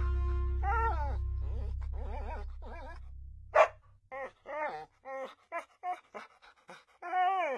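A dog whimpering and whining in a string of short cries whose pitch wavers up and down, with one sharper, louder yelp about three and a half seconds in. Background music fades out during the first few seconds.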